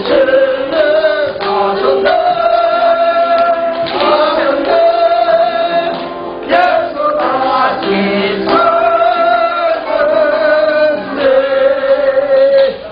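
Voices singing a Korean church praise song (찬양) in long held phrases, the last note ending just before the close.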